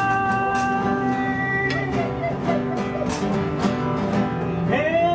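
Live acoustic guitar music, plucked and strummed chords in a steady rhythm. A long held note ends about two seconds in.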